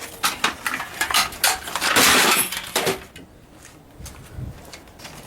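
Hard objects being smashed and broken: a quick run of sharp knocks and clatters, then a loud crash about two seconds in, followed by a few quieter knocks.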